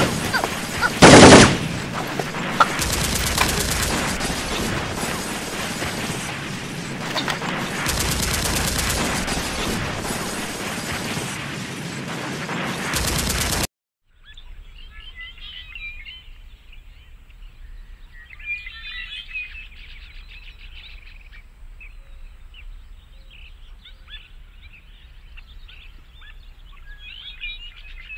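Continuous rapid machine-gun fire, a dubbed effect, with a very loud burst about a second in. It runs for about fourteen seconds and cuts off abruptly, then gives way to birds chirping over faint woodland ambience.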